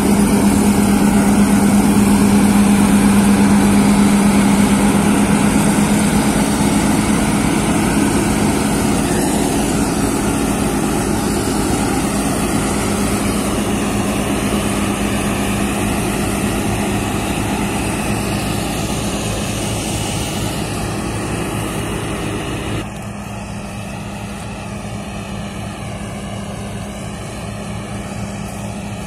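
New Holland TC5070 combine harvester's diesel engine and machinery running steadily at working speed while cutting alfalfa, with a strong low steady hum. The sound fades gradually as the machine moves away and drops sharply about 23 seconds in.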